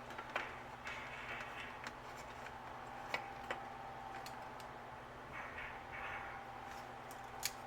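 Quiet handling of planner supplies on a desk, with a few faint clicks and soft rustles over a steady low hum.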